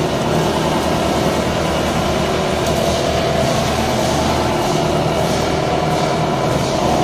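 Wood shaving machine running steadily while it makes shavings and blows them out of its discharge chute.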